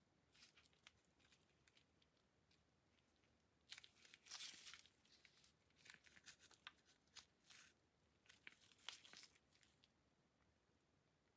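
Faint rustling and small clicks of gloved hands handling a pistol, in scattered short bursts, the loudest about four seconds in and again near nine seconds.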